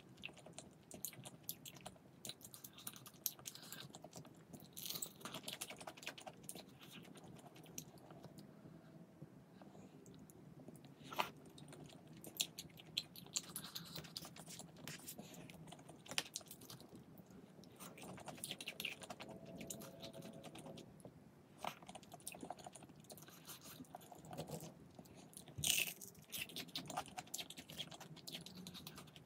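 A person chewing and eating close to the microphone, with scattered crunches and small clicks.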